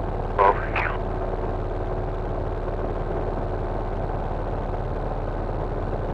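Cessna 172 floatplane's piston engine and propeller droning steadily in flight, heard inside the cabin. A brief loud burst cuts in about half a second in.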